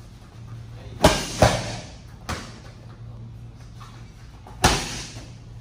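Medicine balls hitting hard, four sharp thuds that echo in the gym: two close together about a second in, a softer one a second later, and another loud one near the end.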